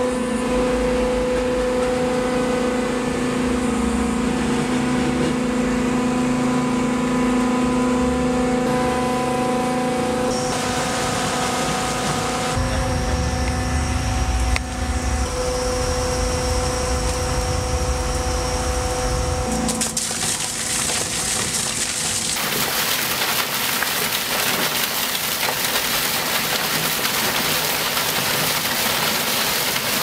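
Roadheader's rotating cutting head and boom machinery running underground: a steady machine hum with several held tones over a low rumble, changing at a few cuts. In the last third a loud, even hiss takes over.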